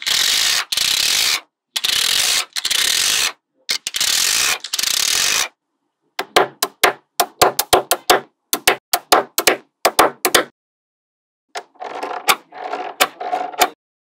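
Small magnetic balls worked by hand: four long scraping rattles, then a rapid run of sharp clicks as balls snap onto one another, then clattering near the end as a strand of balls is laid on.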